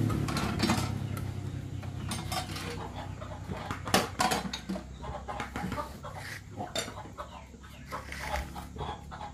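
Chickens clucking amid scattered clinks and knocks. A low engine drone fades out at the very start.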